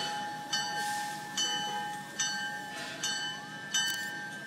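Steam locomotive's bell ringing in a steady rhythm, a struck metallic ring a little more than once a second, each strike dying away before the next.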